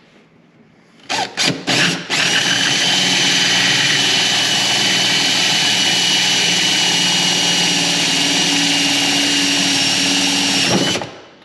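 Power drill driving a 1.5-inch bit with a centre pilot bit through a side-by-side's console panel: three quick trigger bursts, then a steady high whine for about nine seconds that stops abruptly near the end.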